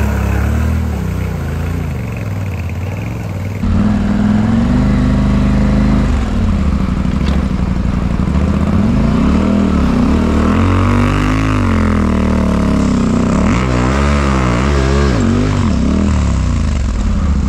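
Adventure motorcycle engine running under way on a dirt trail, its revs rising and falling over and over with throttle and gear changes. The sound steps up suddenly in level a little over three seconds in.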